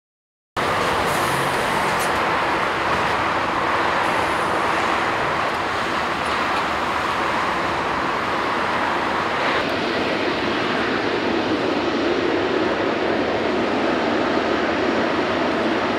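Airbus A380-841 jet with four Rolls-Royce Trent 970 turbofans running at low taxi thrust, a steady jet noise at an even level. It cuts in suddenly about half a second in.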